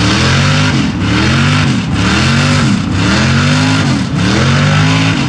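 Naturally aspirated LS V8 (an iron-block 6.0 stroked to 402) in a Chevy mud truck, revving hard and easing off about once a second, five times over, while the spinning tyres sling mud.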